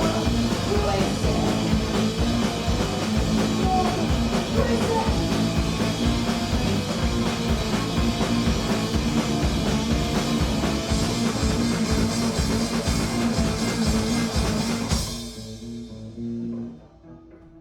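Riot grrrl punk band playing live, with loud drums and singing. The music stops about fifteen seconds in, leaving a held note that fades out.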